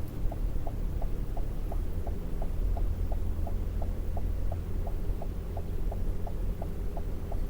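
Vehicle engine humming at idle inside the cabin while rolling slowly, with a steady light ticking about three times a second over it.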